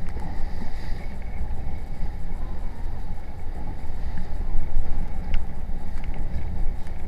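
Steady rush of wind and water around a boat moving through choppy sea, with a low rumble underneath and a few small splashes or knocks.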